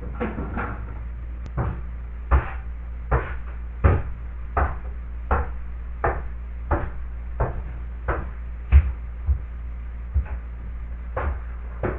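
Slow, regular footsteps thumping on a wooden floor, about one step every three-quarters of a second, over a steady low hum.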